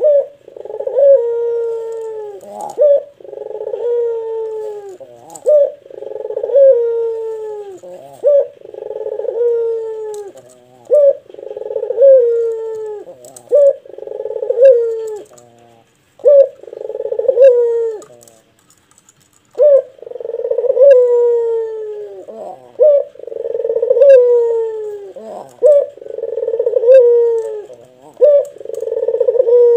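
A caged puter (barbary dove) cooing over and over in a deep voice, about a dozen coos, each a long note falling in pitch. There is one longer pause a little past halfway.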